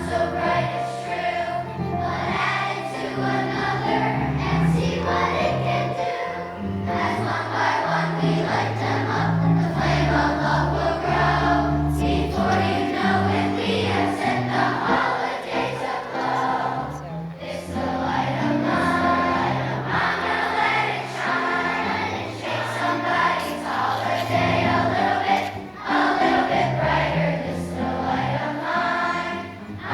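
Music with a choir singing over instrumental accompaniment, its bass notes changing about once a second.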